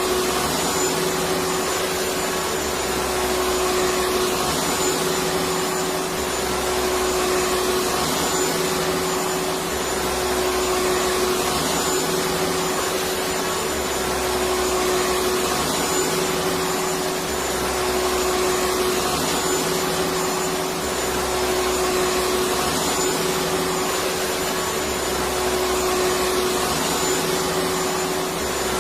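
Vacuum cleaner running continuously: a steady motor hum and rush of air with a constant high whine, and a slow low pulse repeating about every two and a half seconds.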